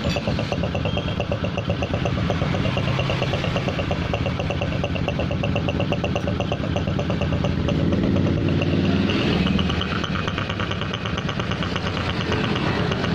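Honda Supra X 125's single-cylinder four-stroke engine idling steadily with a rough, snoring 'ngorok' note. The mechanic traces the note to a cracked engine breather hose leaking air at its clamp.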